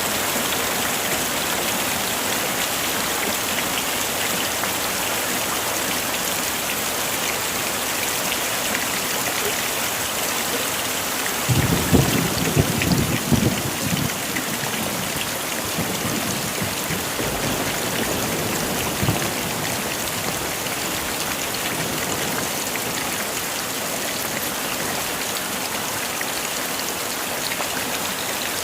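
Heavy rain falling steadily. A rumble of thunder rolls in a little before halfway and lasts a few seconds, and a fainter rumble follows several seconds later.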